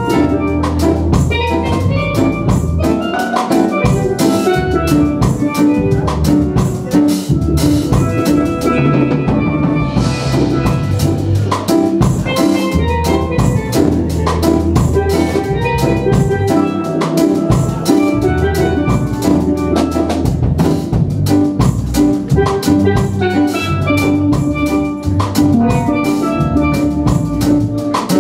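Live band music: a pair of steel pans playing the melody over electronic keyboard and a drum kit, with a cymbal crash about ten seconds in.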